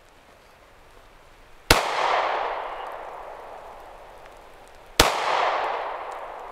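Two pistol shots about three seconds apart, each followed by a long echo that fades away over a couple of seconds.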